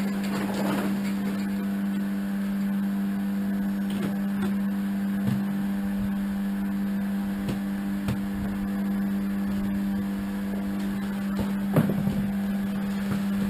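Electric motor running steadily with a constant hum, with a few light knocks and clicks and one sharper knock near the end.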